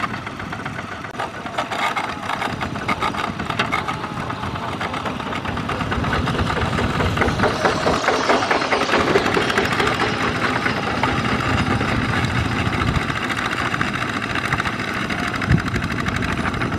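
Single-cylinder diesel engine of a Kubota ZT140 two-wheel tractor running with a rapid, steady chugging as it pulls a loaded trailer, growing louder from about six seconds in.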